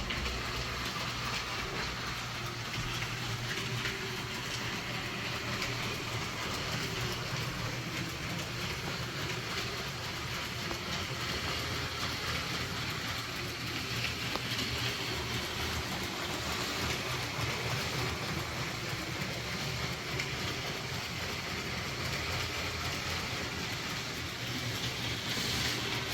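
Motorised Lego train running on its plastic track: a steady small-motor whir with the wheels rattling over the rails.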